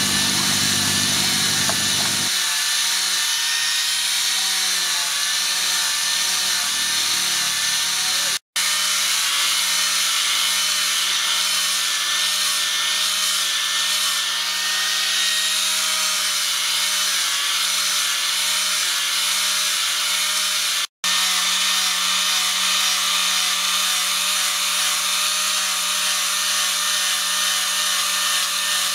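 Electric angle grinder with a sanding pad running steadily while it sands a wooden knife handle: a constant motor whine over the rasp of abrasive on wood. The sound cuts out completely for a moment twice, about a third of the way in and again about two-thirds of the way in.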